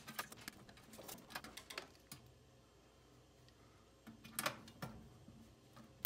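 Light plastic clicks and taps as a furnace control board and its wiring harness are handled: a quick run of clicks over the first two seconds, then a few more about four and a half seconds in.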